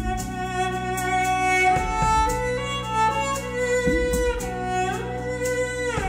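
Recorded music played through Totem Forest floor-standing hi-fi speakers: a slow bowed-string melody with long held notes that slide between pitches, over a steady low accompaniment.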